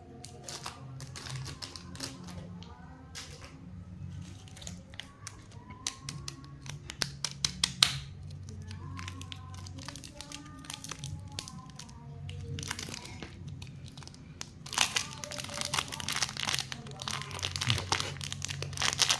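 Plastic lollipop wrappers crinkling and crackling as they are handled, a string of sharp irregular crackles that turns louder and denser near the end.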